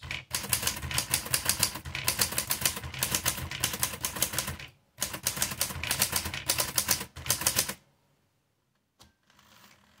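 Smith Corona Standard portable typewriter being typed on: rapid keystrokes with typebars striking the platen, in two runs split by a short pause near the middle, stopping about two-thirds of the way through.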